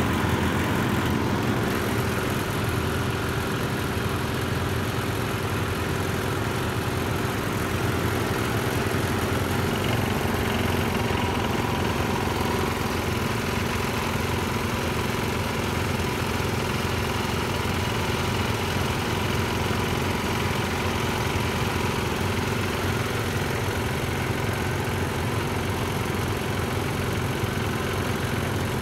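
Several vintage Sears garden tractors' small engines running steadily as the tractors drive along in a line, giving an even, continuous engine drone.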